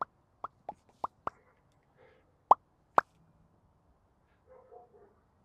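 A series of seven short plops, each a quick blip rising in pitch, coming irregularly over about three seconds; the last two are the loudest.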